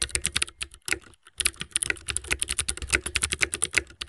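Computer keyboard typing sound effect: a fast run of key clicks, about ten a second, with a brief pause about a second in.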